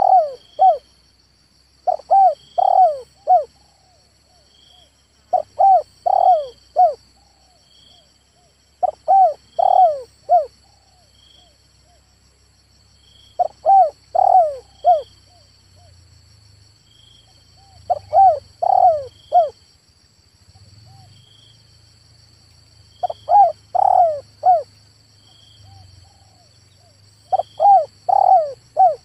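Male spotted dove cooing: short phrases of three or four notes, repeated about every four seconds. A steady high whine with faint regular chirps runs underneath.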